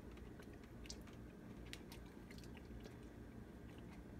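Faint chewing of a mouthful of whole grain mustard, with scattered small clicks as the seeds are worked in the mouth.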